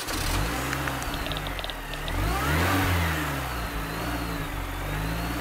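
Car engine revving: the pitch climbs to one rev peak about halfway through, then drops back to a steady run. It is an intro sound effect laid over a logo animation.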